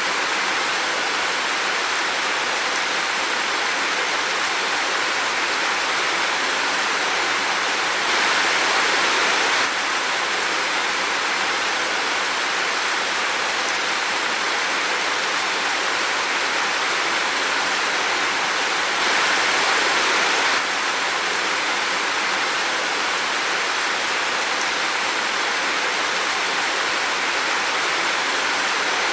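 Heavy rain falling in a steady, even hiss, growing a little louder twice for about a second and a half.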